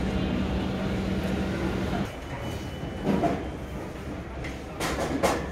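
Airport terminal background noise: a steady hum with a low drone that stops abruptly about two seconds in, then quieter hall noise with a few short knocks.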